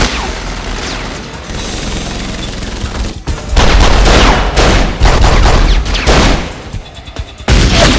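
Movie-style pistol gunfire in a shootout. A loud hit opens it, a dense run of rapid shots follows from about three to six seconds in, and another heavy hit comes near the end.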